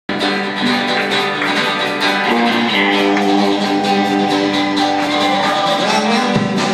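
Live folk-rock band playing: a strummed archtop acoustic guitar and fiddle, with drums and electric guitar. The low end fills in near the end as the band comes in fuller.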